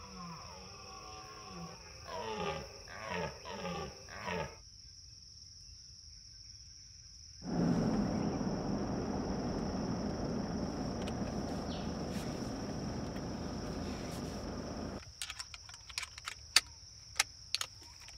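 Red deer stag roaring in the rut: a quick run of rough, bending roars over the first few seconds. After a quiet gap comes a steady rushing noise, then several sharp knocks near the end.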